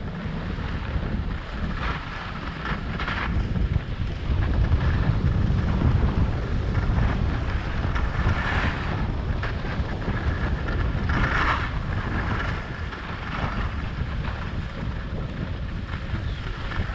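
Wind rushing over a GoPro's microphone on a downhill ski run, a steady low rumble, with the hiss of sliding over packed snow and a few brief louder scrapes as the rider turns.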